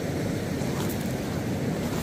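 Wind buffeting the microphone, a steady low rushing noise.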